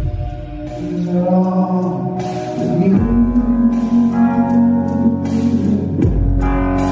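Live band music: sustained electric keyboard chords on a Nord Stage 2 over a low bass note that changes about every three seconds, with a sung vocal.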